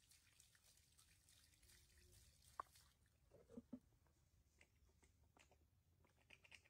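Near silence, with faint scattered drips and small clicks of water.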